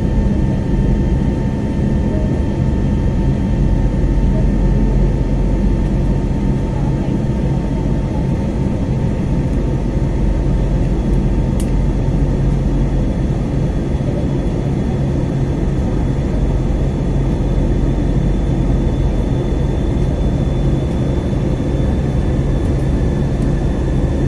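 Jet airliner's engines heard from inside the passenger cabin while climbing after takeoff: a steady low rumble with a few thin whining tones over it.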